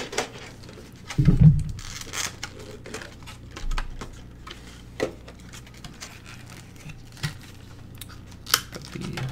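Handling noise from unpacking a Pokémon card tin: plastic wrapping crinkling and tearing, with scattered small clicks and taps of cardboard and tin, and a dull bump about a second in.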